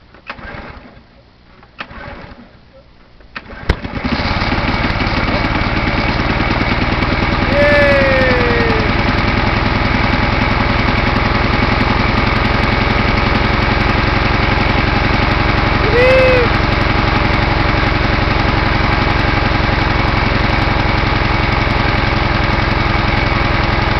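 Small pressure-washer petrol engine on a Simoniz 2350 PSI pressure washer being pull-started cold after months of storage with fogging oil in the cylinder: a few recoil pulls, then about four seconds in it catches and keeps running steadily. Two brief whistle-like glides sound over the engine partway through.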